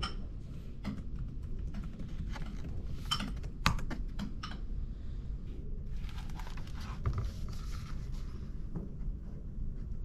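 Scattered clicks of typing on a laptop keyboard for the first few seconds, then the rustle of paper notebook pages being flipped.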